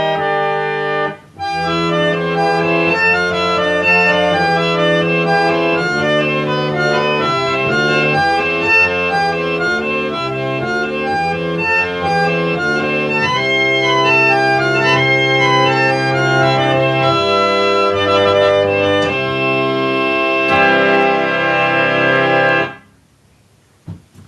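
An 1879 Clough and Warren reed (pump) organ playing a piece, with moving melody lines over sustained chords. About 85% of its reeds have been retuned during the restoration. There is a brief break about a second in, and the piece ends on a held chord that cuts off near the end, followed by a couple of faint clicks.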